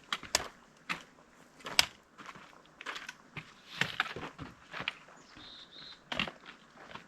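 Hiking footsteps crunching on a rocky, gravelly trail, uneven and irregular.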